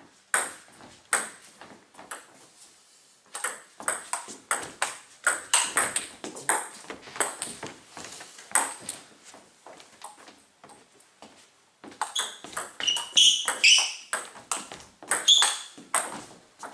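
Table tennis ball striking the table and bats in quick runs of sharp, hollow pings, with a lull of a couple of seconds partway through.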